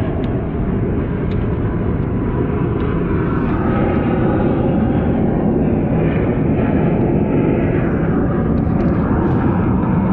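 Original Bosch starter motor from a Mercedes OM617 diesel, powered on the bench from jumper cables and spinning freely with its pinion thrown out, a loud steady run. This is the failed starter whose pinion gear is slow to come back.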